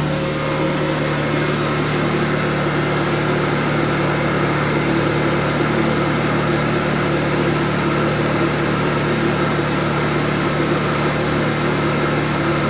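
Leica HistoCore Pearl tissue processor running its pump steadily, a constant hum with a hiss over it, as it drains xylene from the retort back into its reagent bottle.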